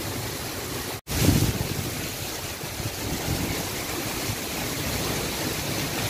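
Heavy storm rain pouring down, a steady rushing hiss. The sound cuts out for an instant about a second in, followed by a short low rumble.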